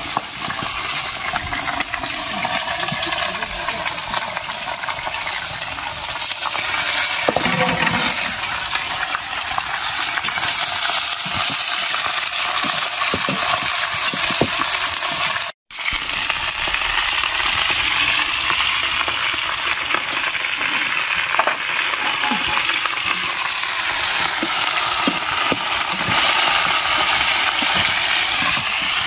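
Chopped pork leg sizzling as it fries in hot oil and spices in a metal karahi, with a metal spatula scraping and clinking against the pan as the meat is stirred. The sound cuts out for a moment about halfway through.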